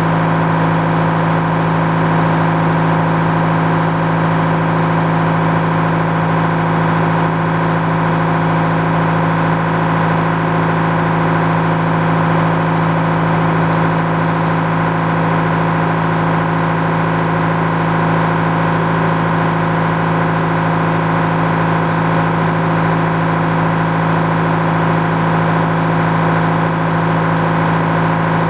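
Engine powering an old Frick sawmill, running at a steady speed with an even, unchanging hum.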